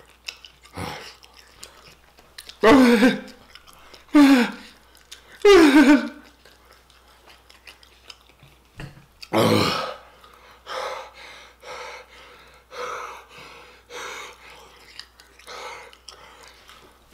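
A man making short groaning sounds, three of them falling in pitch and then a louder one, followed by quick, breathy panting about once a second. He is reacting to the burning heat of very spicy fried chicken in his mouth.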